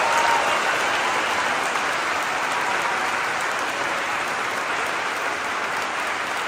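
Audience applauding: steady, dense clapping that eases off slightly toward the end.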